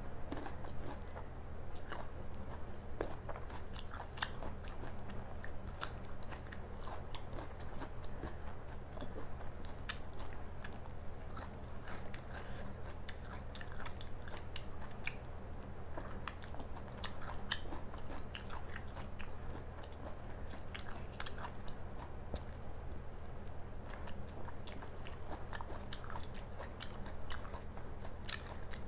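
Close-miked chewing and biting of crunchy baby corn: a continuous run of small, irregular crisp crunches and wet mouth clicks, over a steady low electrical hum.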